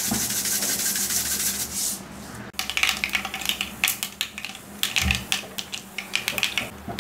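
Mustard seeds sizzling in hot oil: a dense sizzle for about two seconds, then irregular sharp crackling pops as the seeds start to splutter.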